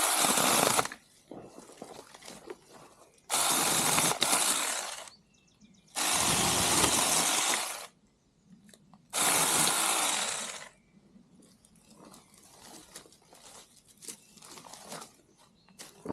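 Saker Plus 6-inch battery mini chainsaw running in four short bursts, each a second or two long, cutting small branches and brush. Fainter crackling of brush comes between the bursts.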